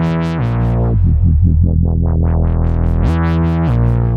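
Yamaha MODX6+ synthesizer playing an electronic FM-X patch: a deep bass line that slides up and down in pitch under quick, short plucked notes.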